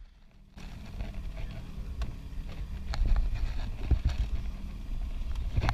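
A fishing boat's motor running with a steady low hum, starting about half a second in, with irregular knocks and thumps over it.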